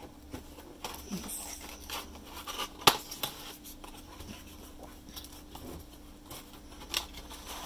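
Small cardboard model-kit box handled and opened by hand: flaps scraping and rustling, with a sharp click about three seconds in.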